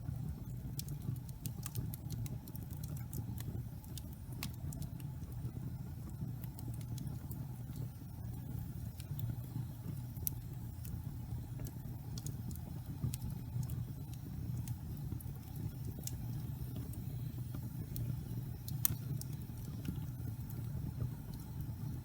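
Wood fire burning in a fireplace: a steady low rumble of the flames with scattered sharp crackles and pops, one louder pop near the end.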